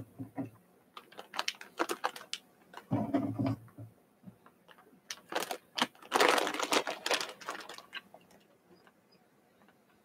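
Small clicks and rustling from jelly beans and their packaging being handled, with a dull thump about three seconds in and a denser rustle near the middle.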